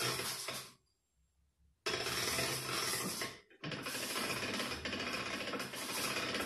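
Hand-cranked coil winding machine turning as copper wire is wound onto a stepped coil former for rewinding an electric motor: a steady mechanical rattle of gears. It stops for about a second shortly after the start, resumes, and breaks off briefly again about halfway through.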